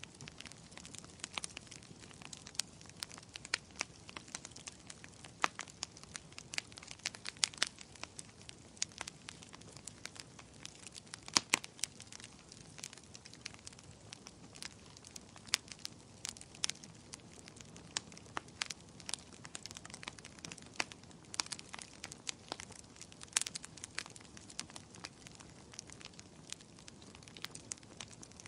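Campfire crackling, with frequent irregular sharp pops and snaps of varying loudness over a faint steady rush of burning.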